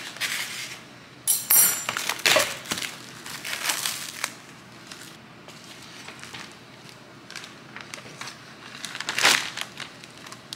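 Plastic food packaging being handled: intermittent crinkling and crackling rustles, busiest in the first few seconds, with another loud rustle about nine seconds in.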